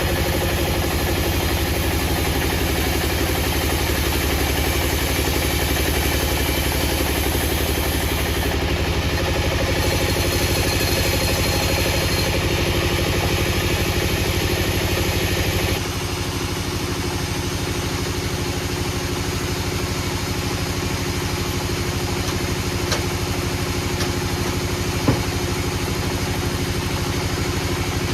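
An engine running steadily at a low, even pulse. It shifts abruptly to a slightly quieter tone about sixteen seconds in, and a few light knocks come near the end.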